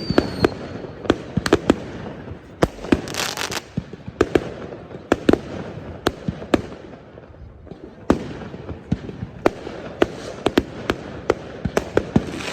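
New Year fireworks: many sharp bangs at irregular intervals, near and far, with a dense crackling burst about three seconds in. A falling whistle from a rocket fades out in the first half second.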